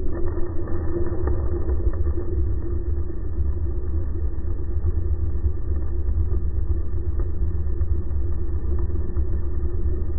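Outboard motor running in gear, heard underwater beside its spinning propeller: a steady low rumble with a droning hum.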